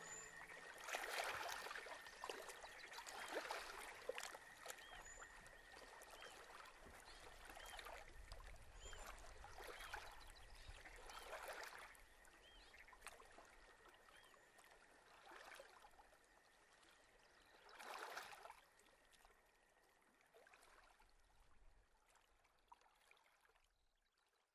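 Faint flowing water, like a stream, swelling and ebbing every couple of seconds, with small high chirps now and then, fading away to silence near the end.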